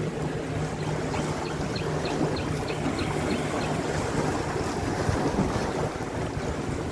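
Small sea waves washing against shoreline rocks, with wind on the microphone and a steady low engine-like hum underneath. A quick run of faint high chirps comes about two seconds in.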